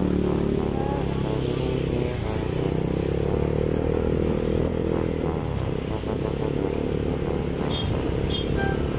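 Motorcycle engine running as the rider pulls away and rides through traffic, with a steady drone that holds throughout.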